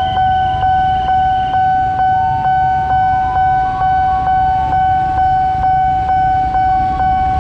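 Railway level-crossing warning bell ringing in a steady rhythm, a little under two strikes a second, with a continuous ringing tone while the barrier is down and a train is due. Motorcycle engines idle underneath.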